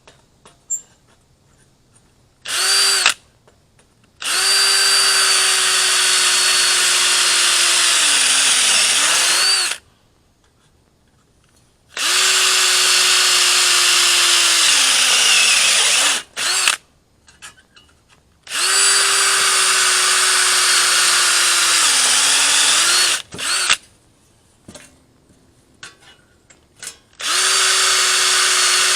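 Handheld electric power tool, most likely a drill, running at a steady pitch in several bursts of about four to six seconds. Each burst winds down in pitch as the trigger is let go, with short pauses between the bursts.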